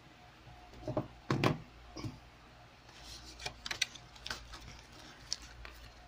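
Cardboard phone box and its paper inserts and accessories handled by hand: scattered taps, clicks and rustles, the loudest pair about a second to a second and a half in.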